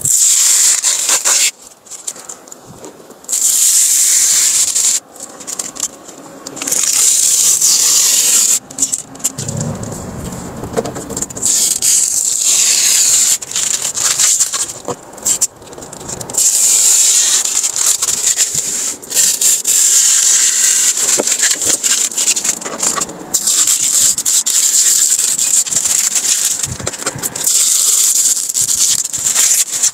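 Clear protective plastic film being peeled off the hard plastic interior trim of a new van, a loud hissing rip as it pulls away. It comes in stretches of a few seconds each with short pauses between.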